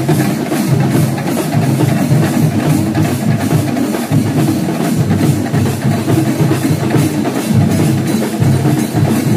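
A percussion ensemble drumming loudly and steadily, with cymbal strokes at about three a second over dense drum beats.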